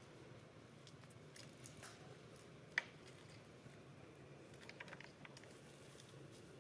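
Quiet background with a low steady hum and scattered faint clicks and rustles, and one sharp click about three seconds in.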